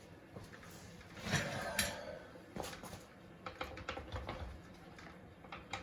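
Hand tools and small metal parts being handled while taking apart a moped's front end. There is a louder rattling clatter about a second and a half in, then a run of light, irregular clicks.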